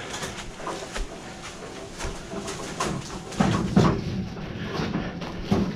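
Clattering and knocking of a heavy load being moved on a hand dolly, with a few louder bangs about three and a half seconds in and again near the end.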